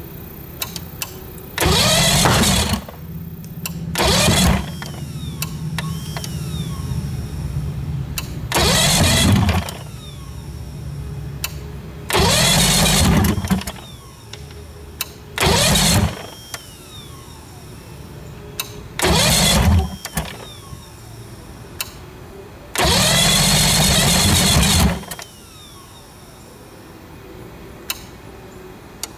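A 1976 Mercury inline-six two-stroke outboard being cranked on its electric starter in seven short bursts of one to two seconds each. Each burst ends in a falling starter whine. The motor does not catch and keep running, a sign of the hard starting the owner has been fighting.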